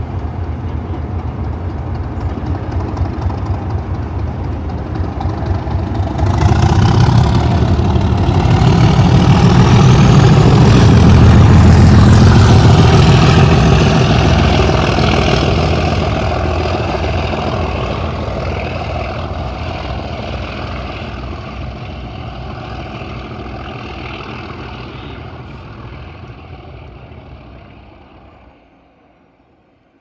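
Two Class 37 diesel locomotives with English Electric V12 engines working hard as they pull away. The engine sound jumps up about six seconds in and peaks with a high turbocharger whistle over the engine note. It then fades steadily as the locomotives draw away, dropping off near the end.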